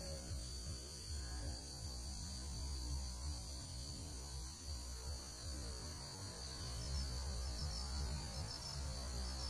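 Crickets chirping steadily in a continuous high trill, over a low steady rumble.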